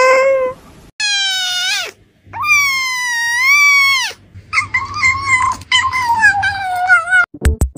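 A white kitten crouched on a raw fish lets out long, high-pitched whining mews while it eats: one falling, one rising then falling, then a broken run of cries that slowly drops in pitch. An adult cat's short open-mouthed yowl ends about half a second in, and music with a beat starts right at the end.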